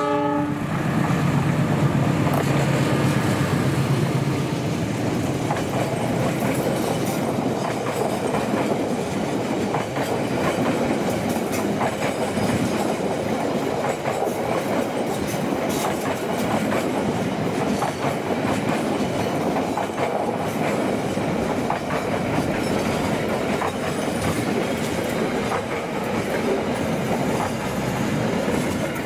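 Argo Bromo Anggrek express passenger train rolling into the station. The diesel locomotive's engine hum carries through the first few seconds, just after its horn ends. Then the coaches' wheels clack steadily over the rail joints and points, with short clicks throughout.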